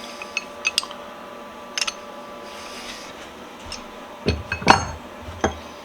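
Metal pipe wrenches being handled on a workbench: scattered light clicks and clinks, then a few heavier knocks between about four and five and a half seconds in.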